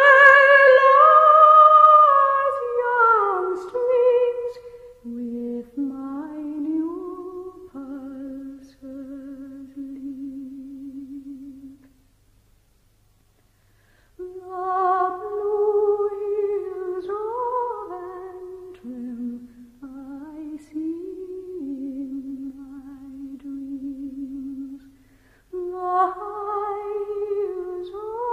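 A woman's voice humming a slow, unaccompanied melody, with vibrato on the long held notes. It breaks off for about two seconds midway and then resumes.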